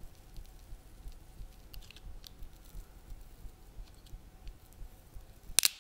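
Faint scattered little clicks and crackles as a flat metal spatula pries a glued-in smartphone battery (Google Nexus 4) out of its housing, the adhesive underneath giving way. Near the end comes one sharp, loud snap, the sound of the glue suddenly letting go.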